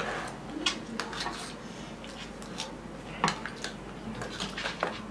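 Metal spoons clinking and scraping against small ceramic bowls as ice cream is scooped out, in irregular light clicks.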